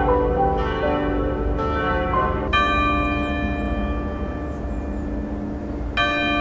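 Church bells ringing: a quick run of notes from smaller bells, then a single larger bell struck about two and a half seconds in and left to ring, and struck again near the end.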